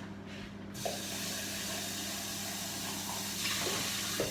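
Kitchen tap running into a sink while a jug is rinsed out under it. The water comes on under a second in and runs steadily, a little louder near the end.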